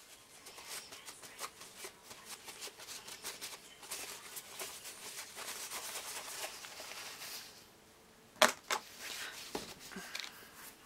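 Crinkling and rustling as a baby wipe and its zip-top plastic bag are handled, with one sharp knock late on, the loudest sound in the stretch.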